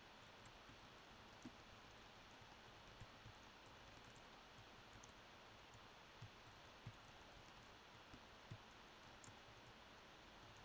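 Near silence: faint steady room hiss with scattered, irregular soft clicks and taps from quiet desk work.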